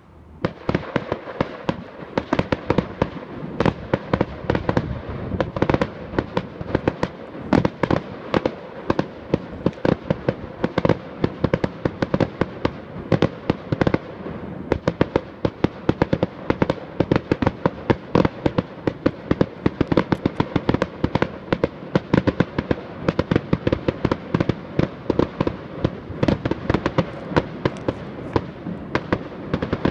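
Aerial fireworks display: a dense, continuous run of bangs and crackles from bursting shells, several a second, starting about half a second in.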